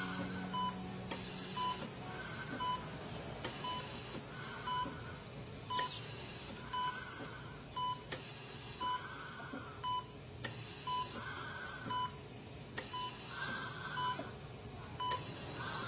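Hospital patient monitor beeping about once a second, with a ventilator's soft hiss pushing a breath roughly every two seconds.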